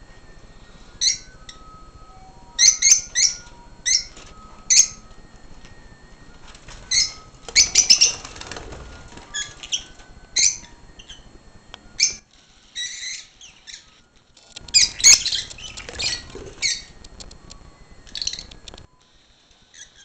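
Lovebirds calling: short, sharp, high-pitched chirps, some single and some in quick runs of two or three, with the busiest stretches about eight and fifteen seconds in.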